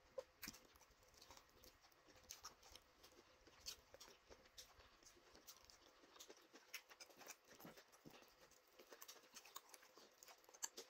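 Faint eating sounds of fufu eaten by hand with ogbono soup: a scatter of small wet clicks, smacks and squishes from fingers working the dough in the soup and from chewing.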